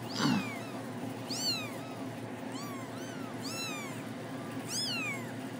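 Week-old kittens mewing: about six separate thin, high-pitched mews, each rising then falling in pitch.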